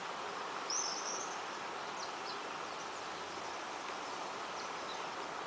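Outdoor ambience: a steady even hiss, with a brief high chirp about a second in and a few faint, short high chirps after it.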